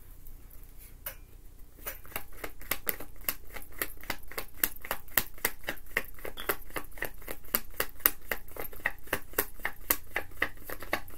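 A deck of tarot cards being shuffled by hand: a quick, steady run of card clicks, about five a second, starting about two seconds in.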